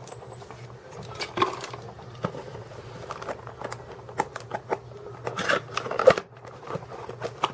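Irregular light clicks, taps and rustling as small plastic-packed parts and cables from a car alarm kit are handled, over a faint steady low hum.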